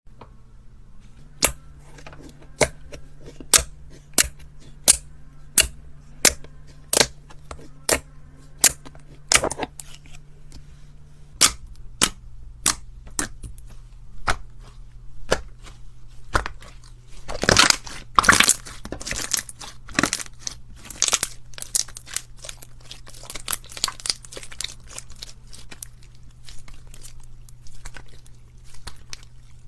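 Crunchy slime being pressed and squeezed by hand, giving a regular series of sharp crunching clicks about every two-thirds of a second, then a denser burst of crackling about halfway through.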